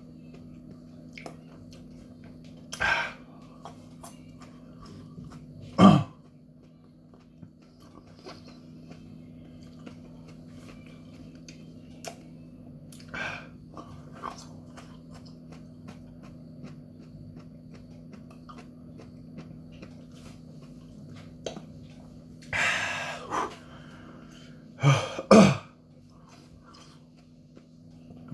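A man coughing and clearing his throat in a few short bursts, loudest about six seconds in and twice in quick succession near the end, with quiet mouth sounds between: his throat reacting to the heat of Carolina Reaper peppers. A steady low hum runs underneath.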